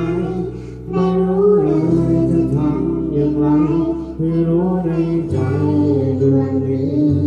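A young girl singing a Thai song into a handheld microphone, amplified through a portable PA speaker, over a karaoke backing track with held bass notes.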